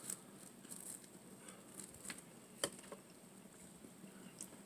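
Faint crackling and soft ticks of toasted garlic bread being torn apart and handled, with one sharper click a little past halfway.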